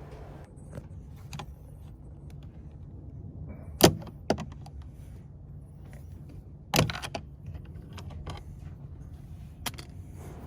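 Small plastic door trim cover on a Honda Civic being handled and prised off: a few sharp clicks and taps, the loudest about four seconds in, with more near seven and ten seconds.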